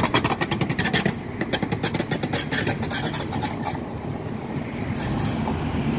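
Stockholm A32 light-rail tram passing close by, a steady rumble with a rapid run of sharp clicks through the first half and a few more near the end.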